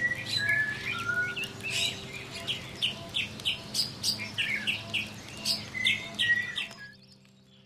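A bird chirping: a quick run of short, sharp chirps and brief whistles, some sliding in pitch, over a low steady drone, breaking off about seven seconds in.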